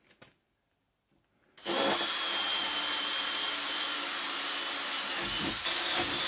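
Handheld power drill boring a hole through a PVC-coated wooden panel. It starts abruptly about one and a half seconds in and runs steadily with a high whine.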